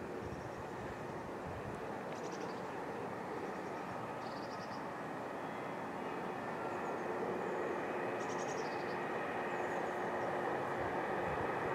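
A diesel locomotive hauling a train approaching at a distance: a steady engine drone that slowly grows louder as the train draws nearer. Birds chirp briefly a few times.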